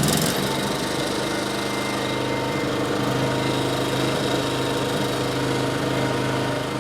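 Ryobi 1800/2300 portable generator's small engine running steadily and refusing to shut off despite the control knob being turned to stop: a wire to the stop switch is broken.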